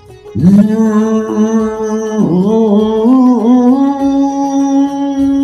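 A single voice singing one long held note of a devotional bhajan. It dips in two small melodic turns a little past two and three seconds in, then settles slightly higher.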